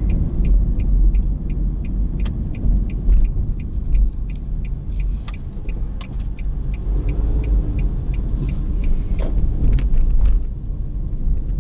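Car's turn-signal indicator ticking evenly, about three clicks a second, over the low rumble of engine and tyres heard inside the cabin.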